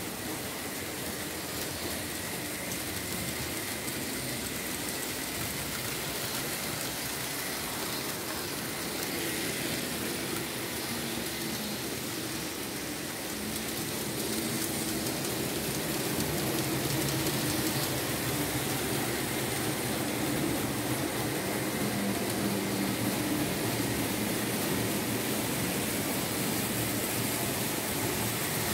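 Märklin H0 model trains running on the layout: a steady whirr of the little electric motors and metal wheels rolling on the track, with a faint high whine. It grows louder about halfway through as a model steam locomotive with coaches runs close by.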